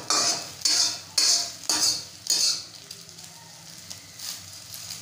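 Slotted steel spatula scraping and chopping scrambled eggs against a metal kadhai (wok), about five quick strokes in the first two and a half seconds, then softer sizzling of the eggs frying in oil.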